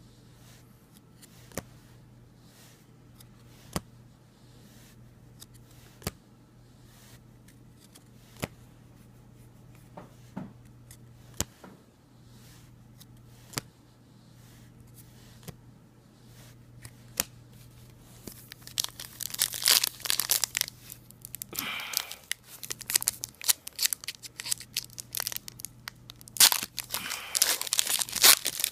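Plastic wrapper on a slab of trading card packs being torn open and crinkled, loud and busy from about two-thirds of the way in. Before that there are only light single clicks every couple of seconds. A low steady hum runs underneath.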